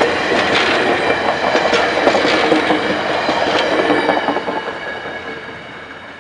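Stainless-steel Budd passenger cars of a VIA Rail train rolling past close by, their wheels clicking on the rails over a steady rumble. The noise fades over the last two seconds as the tail car passes and the train moves away.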